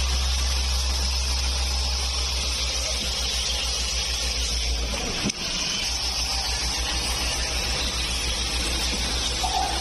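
Automated syringe assembly machinery running: a continuous even hiss over a low hum, with a brief break a little over halfway.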